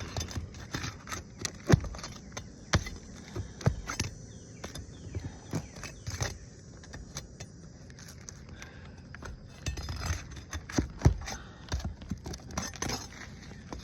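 Irregular sharp clicks, knocks and scraping from a metal tool working under asphalt roof shingles, prying the tabs loose from their sealant strips. The clicks come in a busier cluster near the end.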